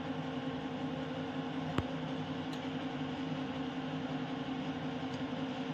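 A steady mechanical hum, even and unchanging, with one short click a little under two seconds in.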